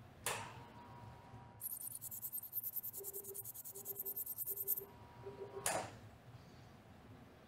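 Tenex Health TX system delivering ultrasonic energy through the TX MicroTip during treatment. There is a sharp click about a third of a second in and a steady electronic tone, a rapid high-pitched pulsing buzz through the middle, several short low beeps, and another sharp click near six seconds.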